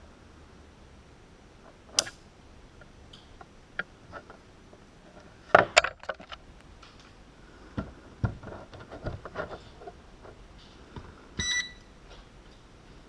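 Clicks and knocks of small parts and a plastic battery connector being handled and set down on a cutting mat, with a sharp click about 2 s in and a louder clatter around 5 to 6 s. Near the end comes one short electronic beep as the quadcopter's transmitter and receiver board power up.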